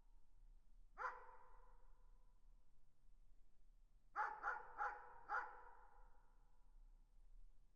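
A dog barking in the distance: one bark about a second in, then a quick run of four barks a few seconds later, each trailing off in an echo.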